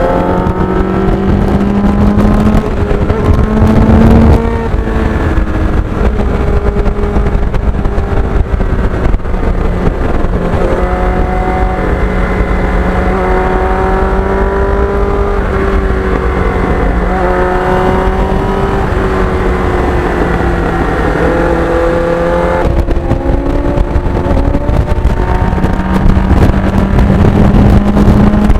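Sportbike engine running at speed, its revs rising and falling throughout.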